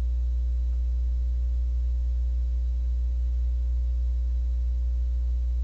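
Steady low electrical hum with a few faint higher tones over it, unchanging throughout; nothing else is heard.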